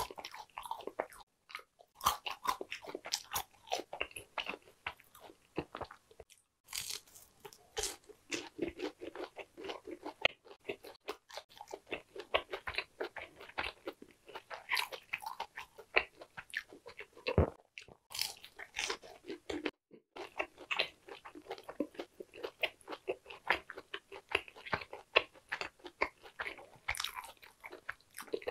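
A person biting and chewing crisp fried food, French fries and a long fried cheese stick, with many crunches in quick succession broken by a few short pauses.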